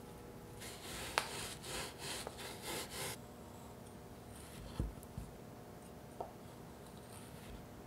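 Kitchen knife cutting a sugared puff pastry sheet on a bamboo cutting board. It starts with a run of about six rasping strokes, then gives two soft knocks as the blade meets the board.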